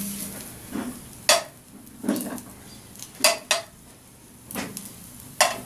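Stainless steel grill tongs clinking against a metal grill grate and a metal plate while small bratwursts are laid on a charcoal grill: about seven sharp metallic clicks at irregular intervals.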